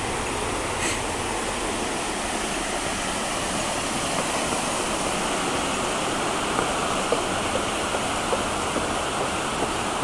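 Mountain stream running, a steady rush of water.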